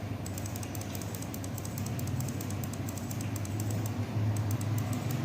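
Computer keyboard typing: rapid, irregular light key clicks, with a short lull past the middle, over a steady low hum.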